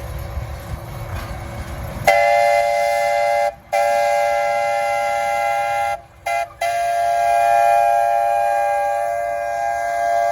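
Train rumbling along, then, about two seconds in, the locomotive's multi-tone chime sounds long, long, short, long, the last blast held on: the standard grade-crossing signal.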